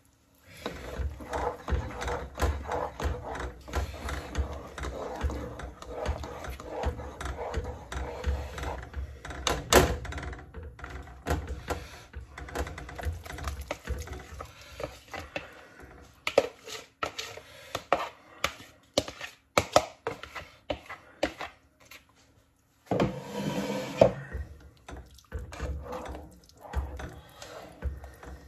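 A slotted spatula scrapes marinated chicken out of a bowl into a saucepan of sauce, then stirs it. Through the first half there is steady scraping and the wet slop of the chicken going in; later come sharp clicks and knocks of the spatula against the pan.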